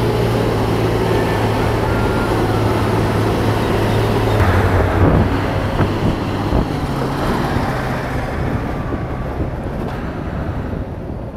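Hero Hunk motorcycle's single-cylinder four-stroke engine running at road speed with wind and road noise while passing a truck. A steady low engine note changes about four seconds in, and the sound grows quieter and duller over the last few seconds.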